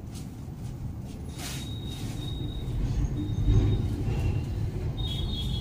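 Steady low background rumble that swells a little about three seconds in, with a few faint, thin, high-pitched chirps over it.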